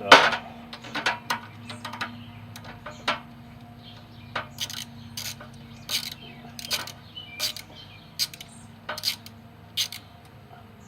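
Irregular sharp metallic clinks and taps of hand tools on small metal parts, the loudest just after the start, over a faint steady low hum.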